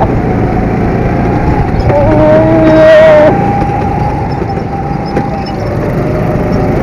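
Go-kart engines running at racing speed, with wind rushing over the onboard microphone. An engine whine swells louder about two to three seconds in, then settles back.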